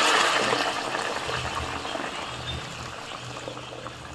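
Warm water poured in a stream from a bottle into a hot wok of fried spice paste. The hiss of the water hitting the hot pan fades steadily as the water spreads and the pan cools.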